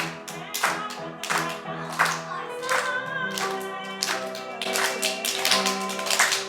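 Song music with a steady beat of sharp strikes, about one every two-thirds of a second, under sustained pitched notes.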